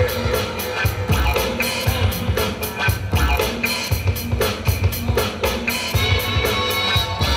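Hip-hop breakbeat music with a steady drum beat: regular low kick-drum hits under quick, evenly spaced cymbal strokes.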